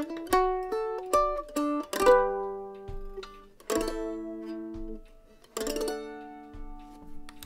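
Kentucky KM150 mandolin picked solo: a run of single notes, about two or three a second, then three chords struck a couple of seconds apart and left to ring out and fade.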